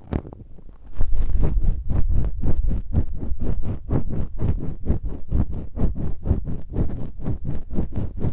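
Ear pick scratching and scraping in a microphone's ear, in quick repeated strokes several times a second. The strokes start about a second in, after a brief lull.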